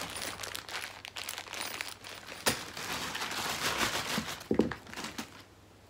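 Plastic bag crinkling and rustling as it is handled and opened, with a sharp click about two and a half seconds in and a knock a little later. The rustling stops shortly before the end.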